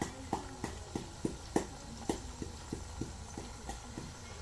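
Steady rhythmic knocking, about three knocks a second, a few of them louder than the rest.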